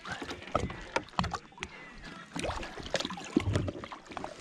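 Hands working a rubber-coated landing net in the water alongside a boat, with a musky in it: scattered short clicks and knocks and water splashing, with a heavier thump about three and a half seconds in.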